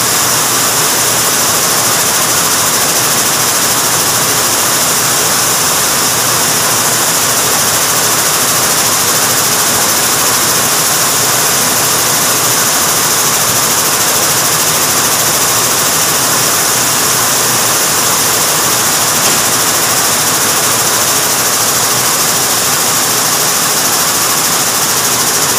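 Weaving shed of running air-jet looms (Tsudakoma ZAX series): a loud, steady machine din with a strong hiss, unbroken throughout.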